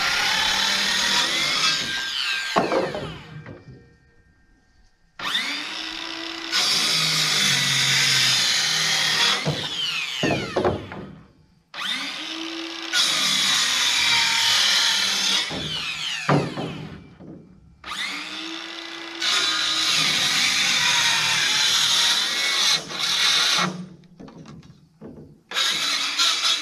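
Handheld power tool running in repeated runs of about five seconds with short pauses between. It spins up at each start and winds down with a falling whine at each stop, about four runs in all.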